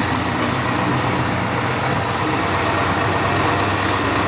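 Ford 352 V8 engine in a 1965 Mercury pickup running steadily after a hard start. Its fuel pump is not working at all.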